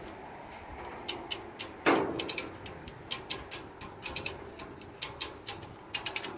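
Metal chain being handled: irregular sharp clinks and rattles of the links, with one heavier clank about two seconds in.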